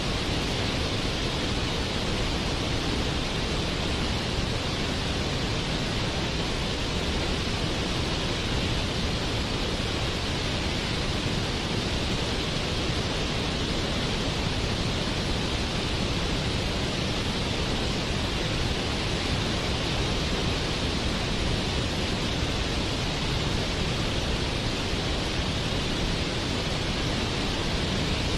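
Waterfall: water falling and splashing, a steady rushing noise with no change in level.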